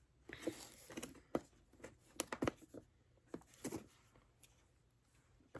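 Faint scattered clicks and short scrapes of fingers and fingernails working at the tab of a cardboard box, trying to pry it loose.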